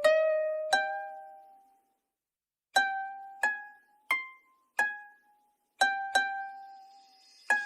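Music intro: a sparse melody of single plucked-string notes, each ringing and fading before the next, with a pause of about a second and a half after the first few notes.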